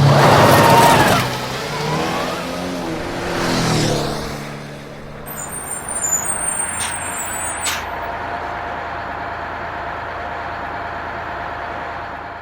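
Heavy truck engines running and revving: loud for about the first second, pitch rising and falling a few seconds in, then settling to a steady running sound that fades out at the end.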